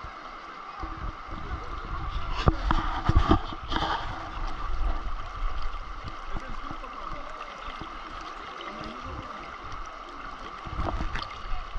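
Shallow river water running over stones, heard close at the water's surface. There are a few sharp splashes and knocks around two to four seconds in and again near the end.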